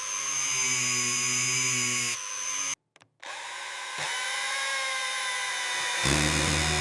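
Power tool running with a steady whine, in short segments cut together: the tone changes abruptly several times and drops out briefly to silence about three seconds in.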